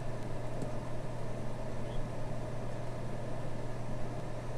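Steady background hum: a low drone with a higher droning tone above it and a faint hiss, unchanging, with no distinct events.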